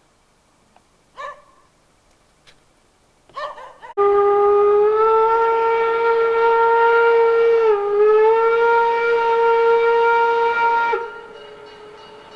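Steam whistle of the DR class 52 locomotive 52 8141-5 blown in one long blast of about seven seconds as the locomotive approaches, dipping briefly in pitch midway before cutting off. The train's running is then heard faintly.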